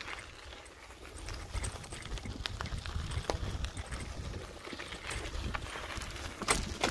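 Bicycle rolling over a rough path: irregular rattling knocks over a low rumble of wind on the microphone, with the loudest knock near the end.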